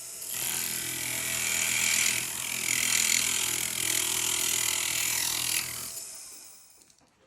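Small rotary jeweler's tool cutting through a ring shank: a steady motor hum under a loud hiss of cutting, which stops near six seconds as the tool winds down.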